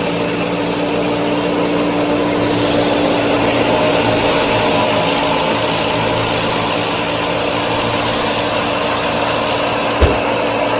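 Small motor of a home-built miniature farm machine running steadily with a constant hum, and a short knock about ten seconds in.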